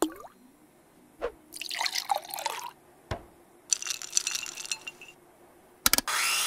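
Cartoon sound effects of ice and liquid: a swish, a knock, then two short bursts of glassy clinking and crackling like ice cubes being handled. Near the end a louder steady splashing pour starts, with a rising tone like a vessel filling.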